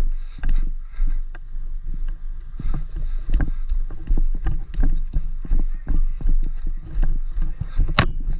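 Footsteps and gear rustling of a moving airsoft player, picked up by a body-worn camera: irregular low thumps about two or three a second over a low wind rumble on the microphone. A single sharp crack near the end.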